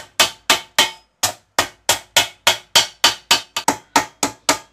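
A wooden mallet strikes thin sheet metal laid over a straight edge, folding down a narrow edge along the sheet. The blows are sharp and steady, about three a second.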